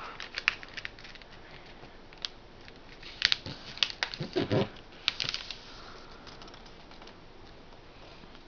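Sheet of paper being folded and creased by hand: scattered short crinkles and scrapes, busiest about three to four and a half seconds in.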